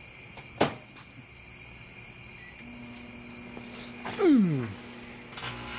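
Crickets chirping steadily, with a short sharp sweep under a second in and a louder sliding tone that falls steeply in pitch about four seconds in. A low hum comes in near the end.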